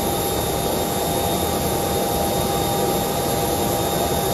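Jet engine running steadily: an even, unbroken roar with a constant high-pitched whine over it.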